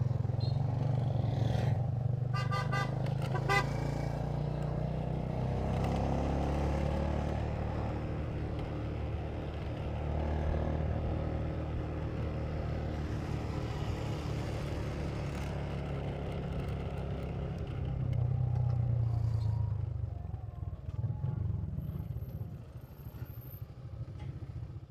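Motorcycle engine running steadily while riding, with road and wind noise. A vehicle horn gives a few short toots about two to four seconds in.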